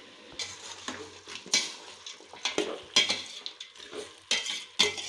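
Metal spoon stirring chicken pieces frying in oil in a steel pot: repeated scrapes and clinks against the pot over a light sizzle.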